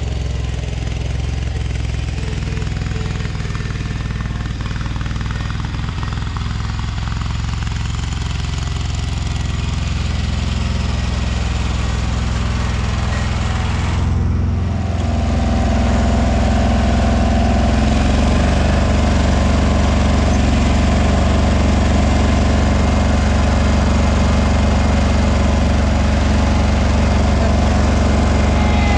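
John Deere 317 garden tractor's Kohler twin-cylinder engine running steadily while the tractor is driven, after a carburetor replacement got it running again. The engine grows louder about halfway through and stays that way.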